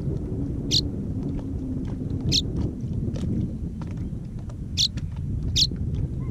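A swallow giving four short, high chirps over the steady low rumble of wind on the microphone.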